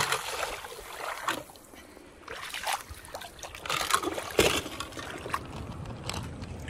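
Small die-cast toy cars clattering in a plastic tub and being dropped into a shallow stream: irregular light knocks and small splashes over the low rush of flowing water.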